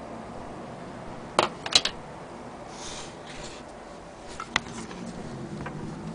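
Handling of an antique Willcox & Gibbs sewing machine being turned over: sharp metal clicks and knocks, three close together about a second and a half in, a brief rustle, then a single click later on.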